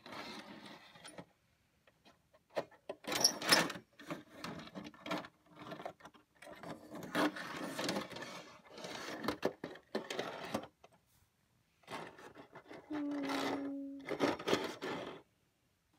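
Die-cast toy cars rolled and pushed by hand across a plastic playset: irregular clusters of rattling, clicking and scraping from the small wheels and plastic, with short pauses between, and one short steady tone about three seconds before the end.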